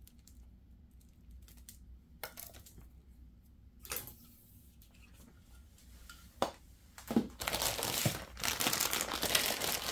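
Plastic packaging bag crinkling as the compressor's accessory parts are unpacked. A few scattered clicks and knocks come first, then continuous, louder crinkling over the last few seconds.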